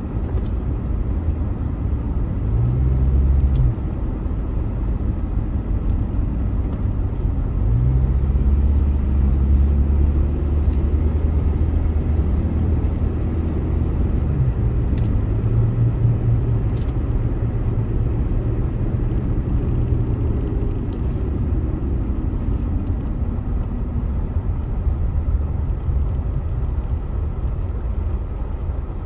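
A car driving on city streets, heard from inside: a steady low rumble of engine and road noise. The engine note rises a few times as the car picks up speed, then settles.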